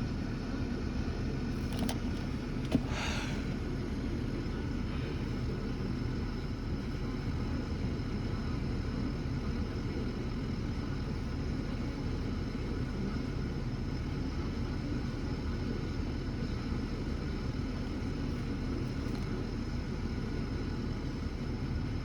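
Steady low rumble of a motor vehicle running, with a short click about three seconds in.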